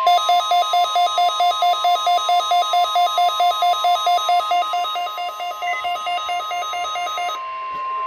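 NOAA weather radio receiver sounding an alert for a Required Weekly Test: a steady, loud alert tone through the radio's speaker, with the receiver's own rapid alarm beeping pulsing over it about four times a second. The beeping stops about seven seconds in and the steady tone holds on alone.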